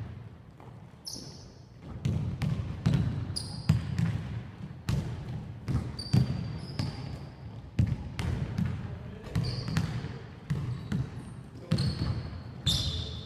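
Basketballs bouncing on a wooden court in an echoing sports hall: irregular thuds, one or two a second, with short high sneaker squeaks every few seconds.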